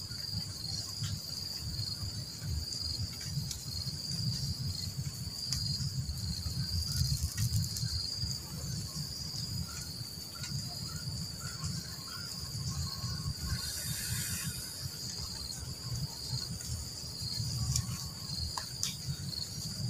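Evening insect chorus: a steady, unbroken high-pitched trill, over a low, uneven rumble. About fourteen seconds in there is a brief hiss lasting about a second.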